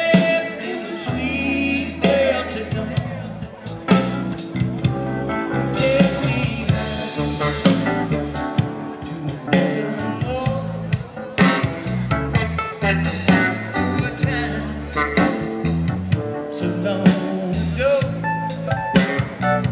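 Live band playing a song through a PA: drum kit, bass guitar, electric guitar and keyboard, with a lead vocal singing over them.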